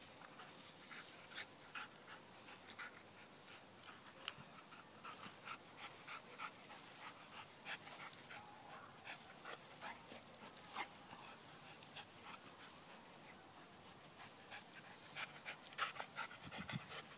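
A dog panting faintly, with short irregular clicks and rustles.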